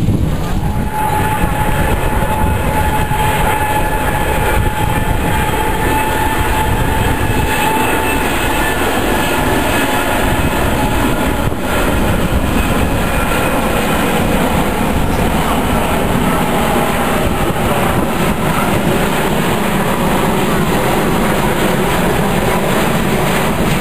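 Steady jet noise from an Airbus A380's four turbofan engines as the airliner flies past low, with a high whine that fades out after about five seconds.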